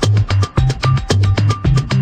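Music with a steady, fast beat: a pulsing bass line of short notes under sharp percussion hits.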